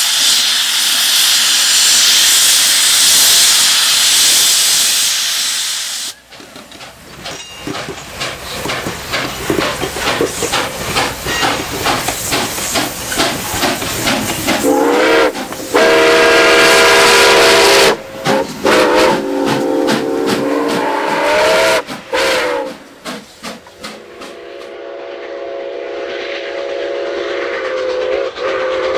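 Nickel Plate 765, a Lima-built 2-8-4 Berkshire steam locomotive, first standing and venting a loud steady hiss of steam. After a sudden break it runs close by with fast, even exhaust chuffs, and from about halfway through its multi-tone chime whistle blows in several blasts. Near the end the whistle sounds again in one long blast as the locomotive approaches, over a rising hiss.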